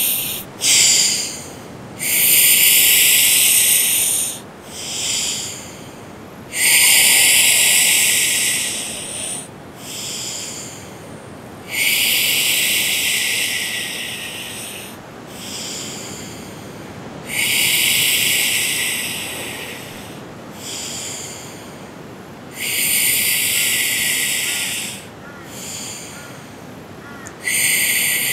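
A woman doing a pranayama breath, inhaling through puckered lips and exhaling through her nose: loud hissing breaths in a steady cycle of about one every five seconds, each long breath followed by a shorter, softer one.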